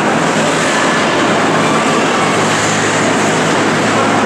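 Steady indoor ice-rink ambience during a hockey game: an even, loud wash of noise with a low hum underneath.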